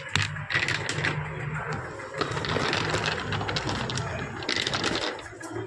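Aluminium car AC connectors clinking and rattling as they are handled and put into a box, many small metal clicks, over a steady low hum that stops near the end.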